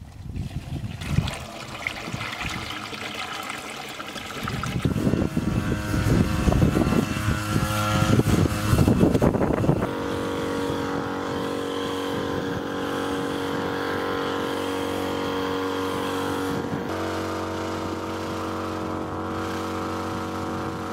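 Motorized knapsack crop sprayer running steadily while its lance puts out a fine mist, its note shifting slightly about two-thirds of the way through. Before that, about the first half holds uneven, irregular noise.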